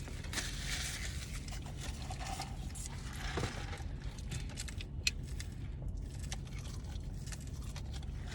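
Low steady rumble inside a car cabin, with faint soft rustling and a single light click about five seconds in.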